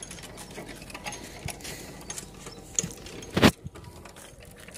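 Hand chain hoist on a tripod clicking and rattling irregularly as it is worked to haul a deep-well turbine pump up out of a borehole, with one loud clank about three and a half seconds in.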